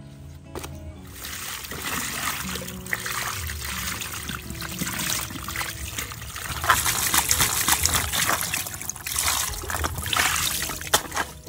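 Water pouring and splashing onto a whole plucked chicken in a woven bamboo tray as a hand rubs it clean. The pouring starts about a second in and gets splashier in the second half.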